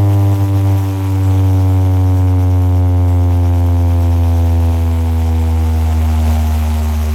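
A loud, held electronic synth tone over deep bass, slowly falling in pitch, played through a large DJ sound-box system.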